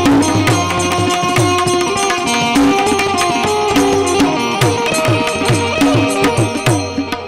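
Instrumental passage of a Gujarati devotional bhajan: a harmonium plays a melody in held notes over a hand drum keeping a steady beat, its bass strokes sliding down in pitch.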